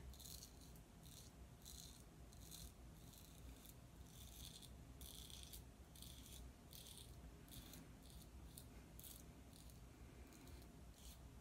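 Faint, short scraping strokes of a Merkur Progress double-edge safety razor with a Gillette 7 O'Clock blade cutting through lathered stubble, about two to three strokes a second, on the second pass of the shave.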